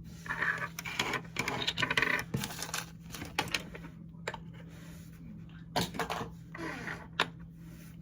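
Clear glitter slime being squeezed and stretched by hand, giving a quick run of wet clicks and pops, thickest in the first few seconds and again near the end.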